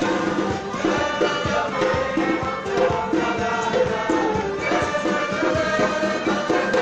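Lively folk dance music: a melody over a quick, steady percussive beat, played for a ring dance.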